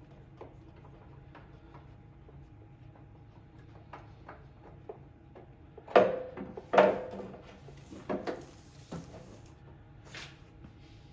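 Small clicks of hand work on the mower engine while the oil filter comes off. About six and seven seconds in there are two loud, sharp metallic clanks with a brief ring, followed by a few lighter knocks.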